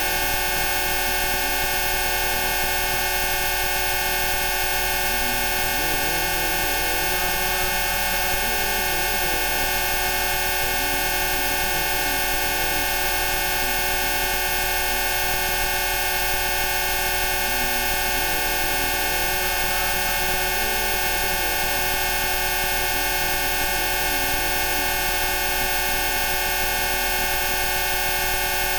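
Rife frequency tones: many pure electronic tones held together as one dense, unchanging chord from low to high, with fainter tones wavering slowly up and down in pitch underneath.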